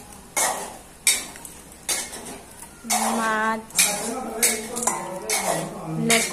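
Stainless steel kitchen bowls and plates knocking and clattering as they are handled, a string of separate sharp clanks.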